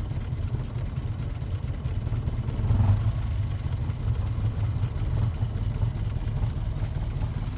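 A classic car's petrol engine idling roughly, with a low, wavering rumble and a brief louder swell about three seconds in. The owner suspects the rough running comes from an ignition coil wired back to front.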